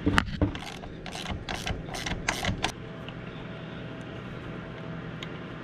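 Hand tools working a retaining clip or cover off the internals of an Audi 01E six-speed transmission, about eight sharp clicks and scrapes in quick succession over the first two and a half seconds, then only a faint tick or two.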